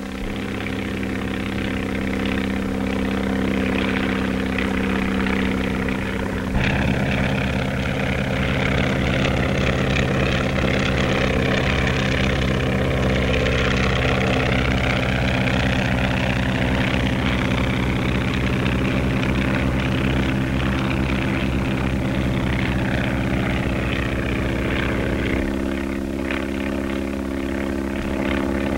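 Biplane engine and propeller droning steadily, the tone shifting and growing slightly louder about six and a half seconds in, and changing again near the end.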